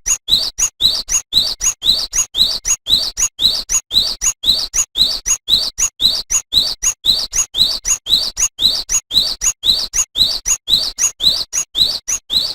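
Cinereous tit (gelatik batu) singing: a fast, unbroken run of short rising notes, about two and a half a second.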